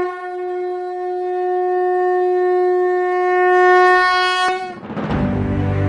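A conch shell (shankha) blown in one long, steady note that swells slightly before cutting off nearly five seconds in. Background music starts right after.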